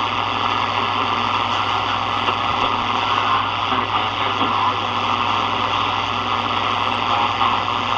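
Steady static hiss from a Sony ICF-7601 portable shortwave radio's speaker as it is tuned across the Shortwave 1 band without finding a clear station.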